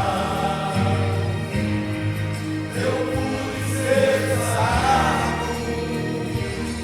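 Music: a choir singing sustained, gliding lines over steady instrumental backing.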